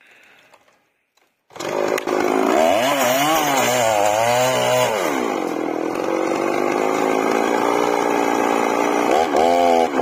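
A two-stroke petrol chainsaw starts about a second and a half in. Its engine speed rises and falls unevenly for a few seconds, settles into a steady run, then revs up high near the end.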